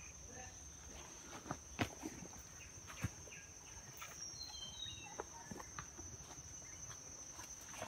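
Steady high-pitched insect drone in tropical forest, with scattered scuffs and knocks of footsteps on rock and tree roots as a hiker climbs down; a few short chirps about four seconds in.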